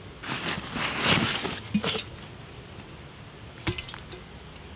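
Nylon backpack rustling as gear is pulled from its pockets, then a sharp tap near the end as a metal water bottle is set down on the ground.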